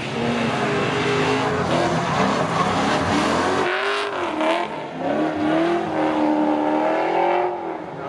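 BMW E36 328i's M52 straight-six engine revving up and down repeatedly through a loud, modified open exhaust.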